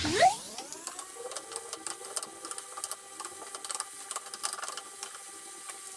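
Pork frying in a pan while a wooden spatula stirs it, with many quick clicks and scrapes. Over it a steady whine of several tones rises sharply at the start, holds, and falls away near the end. The brief rise at the start is the loudest moment.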